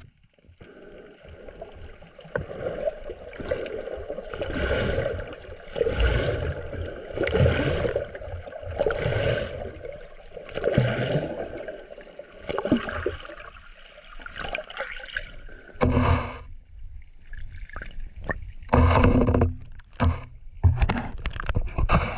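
Muffled underwater water noise as the submerged camera is carried through the sea: swishing and gurgling that swell and fade every second or two. In the last few seconds come sharper splashes and knocks.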